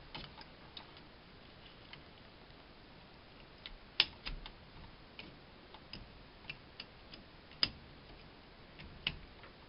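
Scattered light clicks and taps of pliers, hose clamps and plastic valve parts being handled while water hoses are moved onto a new washing-machine inlet valve. The sharpest clicks come about four seconds in and again a few seconds later.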